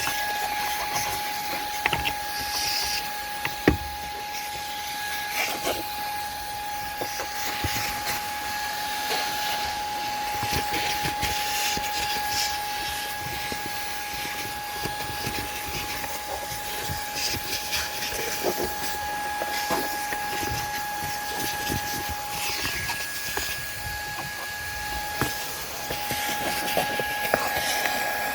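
Shark IZ251 cordless vacuum running steadily with a high whine and hiss, its detail-kit brush nozzle working over a car's dashboard, with light clicks and knocks of the nozzle against the plastic buttons and switches.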